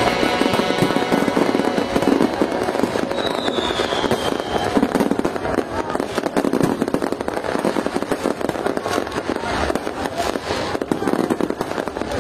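Fireworks crackling and popping without a break, a dense stream of many small sharp bursts. A brief faint whistle sounds about three seconds in.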